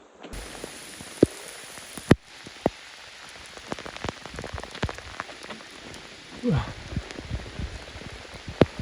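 Heavy rain pattering steadily, with single drops striking close by as sharp clicks, a few of them loud. A short sound falling in pitch comes about six and a half seconds in.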